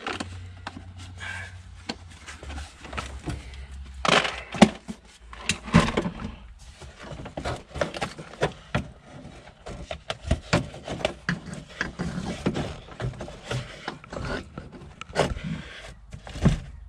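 Hard plastic centre console of a 1979 Camaro being worked loose and lifted off, with irregular knocks, rattles and scrapes of plastic against the shifter and floor. A low hum runs under the first few seconds.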